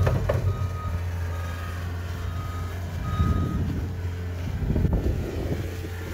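John Deere skid steer loader running, its diesel engine humming steadily under a backup alarm that beeps four times, about once a second, before stopping about three and a half seconds in.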